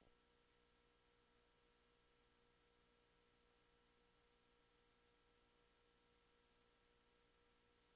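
Near silence, with only a very faint steady tone.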